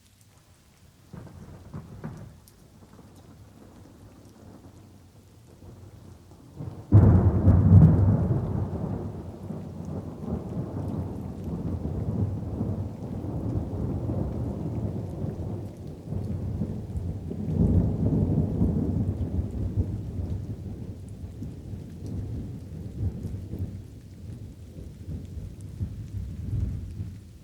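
Thunder over light rain: a faint rumble about a second in, then a sudden loud thunderclap about seven seconds in that rolls on with a second swell and slowly dies away.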